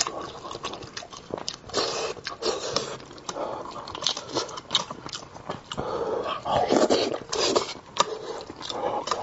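Close-miked eating of spicy braised fish: biting and wet chewing, with irregular mouth clicks and smacks.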